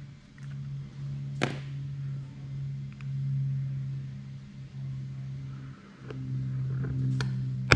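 A steady low mechanical hum with a few short gaps, under a few sharp clicks of a pointed marking tool on a thin metal tin lid, the loudest a sharp snap at the very end.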